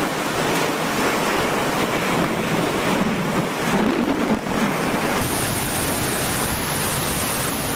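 Strong storm wind and driving rain, a steady dense rush of noise, with the wind buffeting the microphone.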